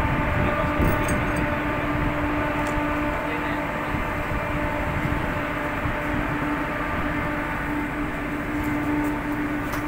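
Steady drone of a ship's machinery, a constant hum over a wash of noise.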